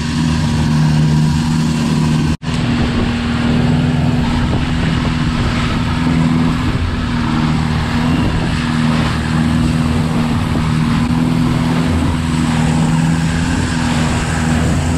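Longtail boat engine running steadily at speed, with water rushing and spraying along the wooden hull. The sound breaks off for an instant about two and a half seconds in.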